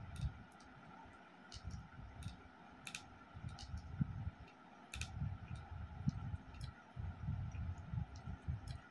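Close-up chewing of a mouthful of rice and curry, with sharp wet mouth clicks and smacks over soft, irregular low thuds of the jaw working.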